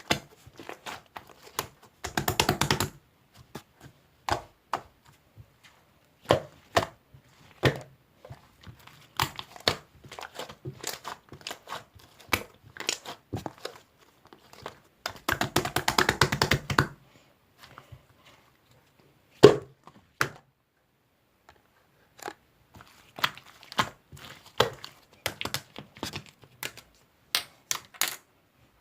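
Close-up handling sounds: scattered taps and clicks, with two stretches of rapid crackling, one about two seconds in and a longer one in the middle.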